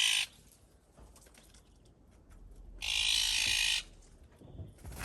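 Magpie chattering: two harsh rattling calls of about a second each, the second about three seconds after the first.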